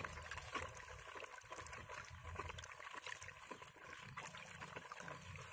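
A bare hand stirring fertilizer into water in a plastic bucket: faint swishing and dribbling of water with small splashes, as the granules are worked until they dissolve.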